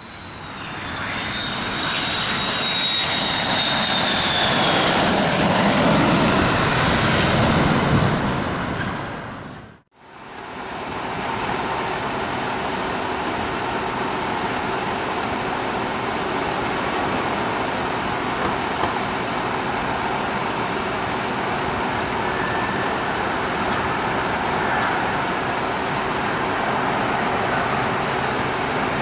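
Boeing 767-400ER on final approach, its jet engines making a steady, even noise, mixed with road traffic. It follows a separate opening sound with a thin, slightly falling high tone that fades out about ten seconds in.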